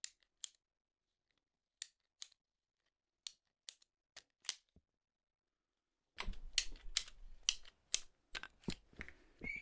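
A handheld ratcheting plastic-pipe cutter clicking as its handles are squeezed and its blade closes on plastic water pipe. First come single sharp clicks, often in pairs, about half a second to a second apart. From about six seconds in comes a quicker run of clicks with handling noise.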